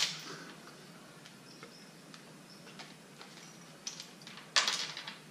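Faint ticks and taps of hand tools on an engine, then about four and a half seconds in a short, loud burst from a ratchet wrench being turned.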